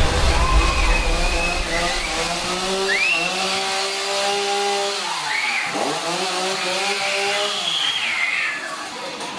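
A chainsaw engine running loudly, its pitch sagging about six seconds in and climbing back up.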